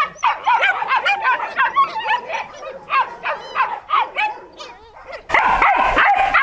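A litter of about three-week-old Malinois puppies yipping and whining, many short high calls overlapping several a second. About five seconds in, after a brief lull, a louder and denser chorus of yips starts.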